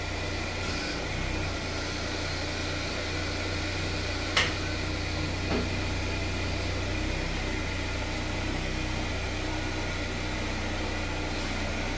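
Chevrolet car's engine idling steadily as the car creeps slowly forward, with a sharp click about four and a half seconds in and a fainter one a second later.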